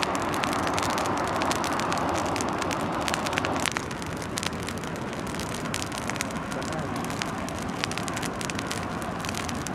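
Bonfire of cut tea-bush branches burning, with many sharp crackles and pops over a steady rushing hiss.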